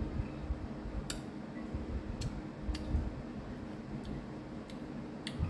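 Mouth sounds of someone eating sour lemon slices: chewing with scattered sharp lip and tongue clicks, about six at an irregular pace, over soft low thuds.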